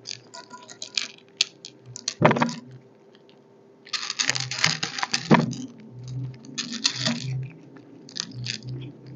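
Dry cat food kibble clattering and rattling in irregular spurts of small hard clicks, with one sharp knock early on and two dense spurts in the second half.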